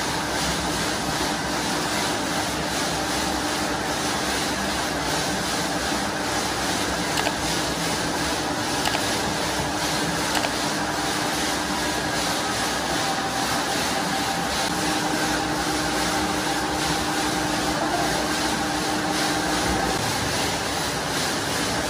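Steady drone of workshop machinery, with a faint hum that drops out for a few seconds in the middle and then returns, and a few light knocks about 7, 9 and 10 seconds in.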